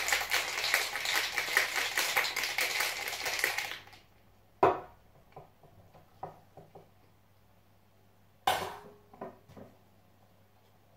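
Ice cubes rattling fast inside a metal cocktail shaker being shaken hard, stopping abruptly about four seconds in. Then a few sharp metallic knocks and clicks as the shaker is handled and its cap worked loose.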